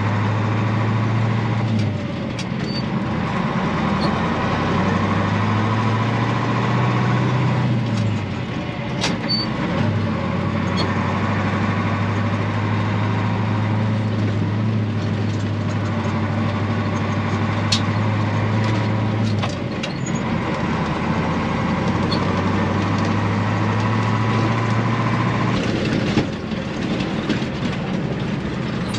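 Caterpillar diesel engine of a Ford 8000 truck running under load, heard from inside the cab. Its note climbs and then drops off four times, as at gear changes on the 10-speed transmission.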